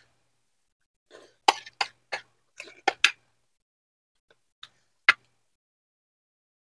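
Eating sounds at a meal of mangrove clams: clam shells and utensils clicking and knocking against dishes, in a quick cluster of sharp clicks between about one and three seconds in, then a single sharp click a little after five seconds.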